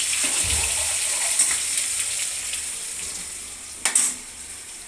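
Ground masala paste sizzling in hot oil in a pan, the sizzle slowly dying down, with one sharp knock about four seconds in.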